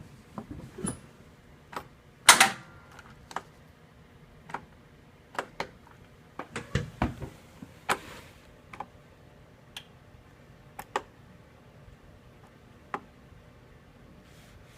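Irregular clicks and knocks of hands working on the lawn tractor, as the battery charger's clamp is moved and reattached, with one louder knock about two seconds in. No engine or starter cranking is heard.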